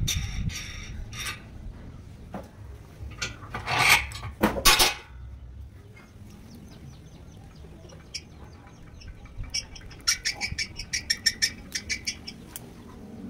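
Steel parts handled in a bench vise: light clicks and rattles of a steel sleeve on a threaded rod, two loud scrapes about four seconds in, and a quick run of light clicks near the end.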